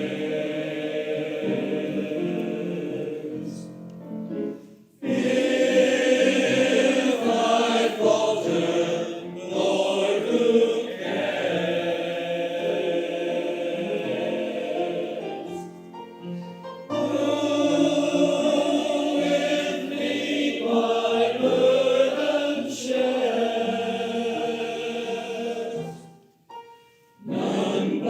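A choir singing a sacred hymn or anthem, in phrases with short breaks between them.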